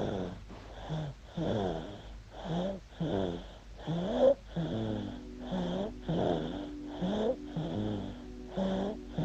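Eight-month-old baby snoring and wheezing, a short rasping breath about every two-thirds of a second.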